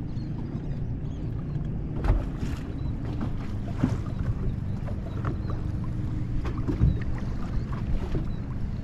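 Wind buffeting the microphone and choppy lake water slapping against the hull of a bass boat, under a steady low hum and a few sharp knocks.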